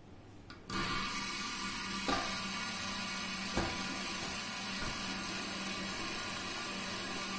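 Several fidget spinners whirring on a glass tabletop, a steady whir that starts abruptly just under a second in. Two sharp knocks come about a second and a half apart as the spinners are handled and flicked.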